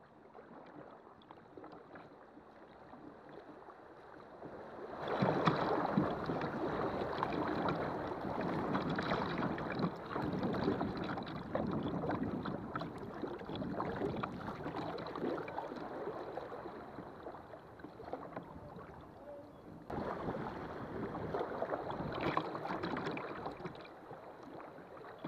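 River water rippling and splashing past a kayak's hull as it runs shallow riffles. Quieter for the first few seconds, it jumps louder about five seconds in, dips briefly just before twenty seconds, then rises again.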